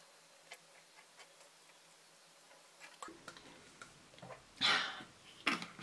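Faint swallowing ticks while drinking from a glass bottle. A little over halfway in, soft handling noises begin, with a short louder sound as the bottle is set down and the next item is reached for.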